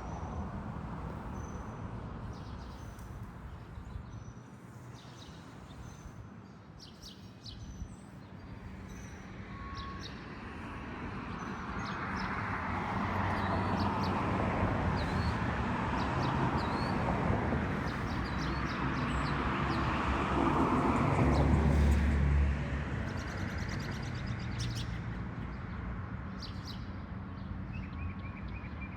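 Small birds chirping with short, high calls throughout, over a broad rushing noise like a passing vehicle that swells up from about a third of the way in and falls away sharply about three-quarters of the way through.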